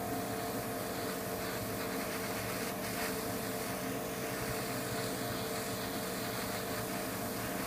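Steady hiss of an airbrush spraying paint onto a plastic model part, over the steady hum of an electric fan.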